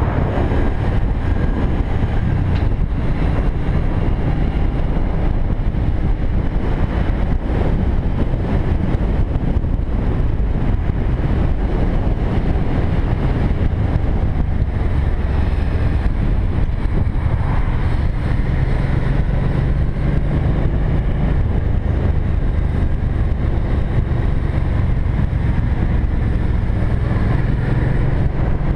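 Cruiser motorcycle engine running at road speed, heard together with wind rushing over the bike-mounted camera's microphone.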